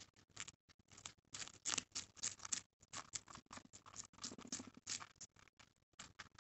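Two guinea pigs biting and chewing a fresh celery stalk close to the microphone: a rapid run of crisp, wet crunches, several a second, loudest a couple of seconds in.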